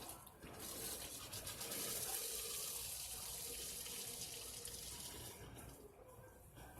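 Water gushing out of the open inspector's test valve at the end of a dry-pipe fire sprinkler system, a steady rushing splash that dies down near the end. It is the sign of water having reached the end of the line after the air-filled pipe was tripped.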